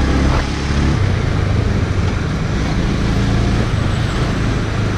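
Motorcycle engine running while riding in town traffic, with wind and road noise. Its note steps up a little about a second in.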